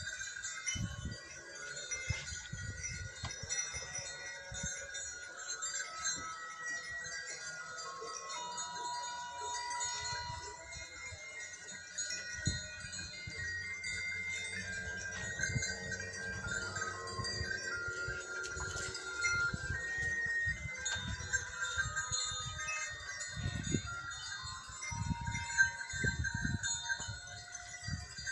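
Many bells on a grazing flock of sheep and goats, clinking and ringing together at several different pitches.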